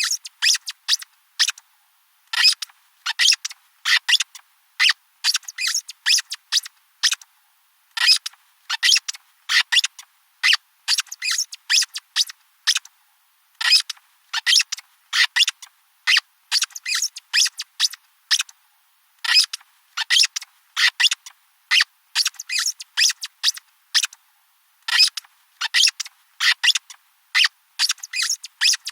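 Rubber squeaky toy being squeezed over and over, giving short high squeaks in quick groups of two to five, about two or three a second, with brief pauses between groups.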